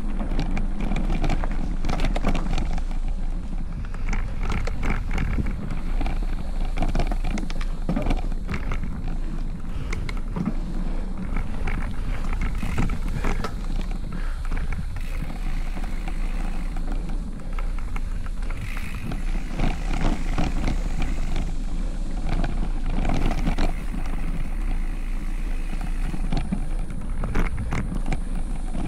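Specialized Stumpjumper Evo mountain bike ridden over a rough trail, heard from a camera clamped to its handlebar: a steady rumble of tyres and frame with wind on the microphone, broken by frequent rattles and knocks from the bike.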